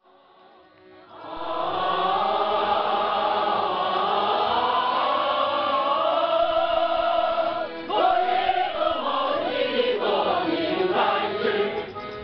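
A large group of people singing together in chorus, with long held notes. The singing starts about a second in, and a new phrase begins near eight seconds.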